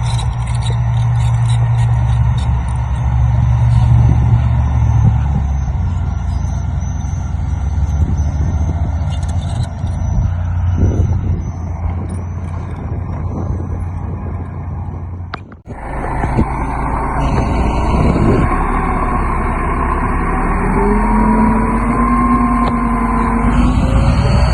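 Heavy diesel engines of earthmoving machinery running steadily. The sound breaks off abruptly at about the two-thirds mark into another stretch where the engine pitch rises and falls as it revs.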